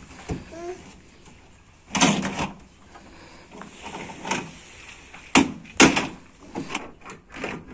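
A series of irregular knocks, clunks and scrapes from plastic toy vehicles being handled and banged about, with two sharp loud knocks about two thirds of the way through.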